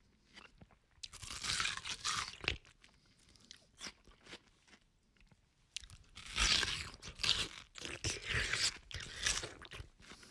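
A person biting into and chewing watermelon: a short bout of bites and chews about a second in, a few faint clicks, then a longer bout from about six seconds until near the end.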